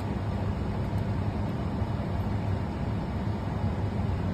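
Steady low hum under a broad hiss, with no clear handling sounds: background machine or room noise.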